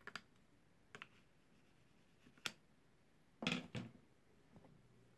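Short plastic clicks and scrapes as the threaded plastic charge indicator of a car battery is worked out of its opening in the battery lid with a metal tool: a few single clicks, then a louder cluster of clicks about three and a half seconds in.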